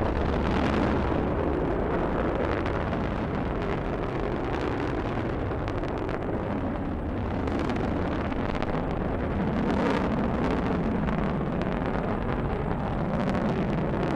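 Rocket engines and strap-on solid boosters firing during ascent: a steady, deep rumble with a crackle running through it.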